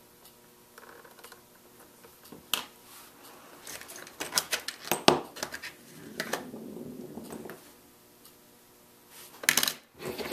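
Small metal leatherworking tools and snap parts clinking against each other and a plastic compartment box as a hand picks through them: one click, then a quick flurry of clicks, a soft rustle, and a pair of sharp clicks near the end.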